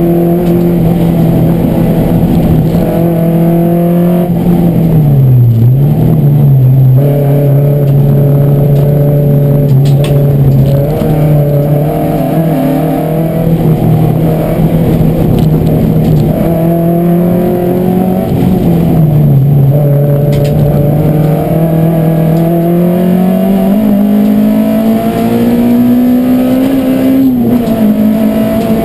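Race car's engine heard from inside its stripped, roll-caged cabin, driven hard on a track. The engine note holds steady, dips twice, about five seconds in and again past the middle, then climbs steadily in revs before dropping sharply near the end.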